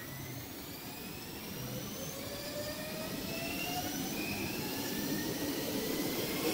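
Electric multiple-unit train accelerating past, its traction motors whining in several tones that rise steadily in pitch, over a rumble of wheels that grows louder.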